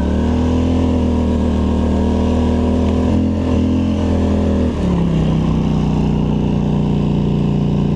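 Polaris Scrambler ATV engine running under throttle at a steady high pitch, then easing off to a lower steady pitch about five seconds in.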